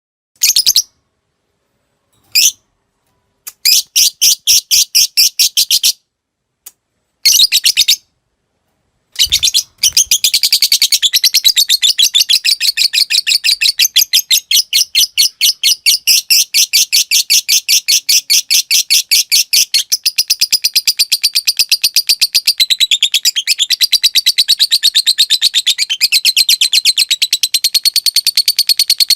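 Fighter lovebird calling: a few short bursts of rapid, high ticking chatter with gaps between, then from about ten seconds in one long unbroken chattering trill, the 'ngekek panjang' that lovebird keepers prize and train for.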